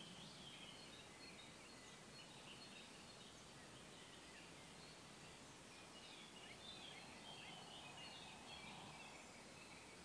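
Near silence with faint birdsong: scattered short high chirps and warbles over a quiet background hiss.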